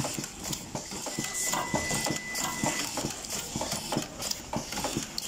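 Automatic screwdriving machine at work on a phone assembly: a quick, irregular run of mechanical clicks and taps, with a thin steady whine from about one second in to nearly three seconds in.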